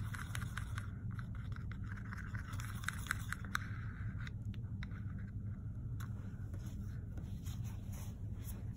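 Plastic palette knife stirring and scraping acrylic paint in a plastic palette well: soft scrapes and quick small clicks, busiest in the first half and thinning out later, over a steady low room hum.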